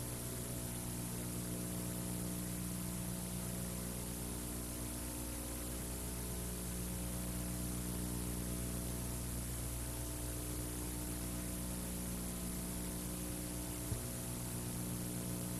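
Steady electrical hum with several evenly spaced overtones under a constant hiss, with a single faint tick near the end.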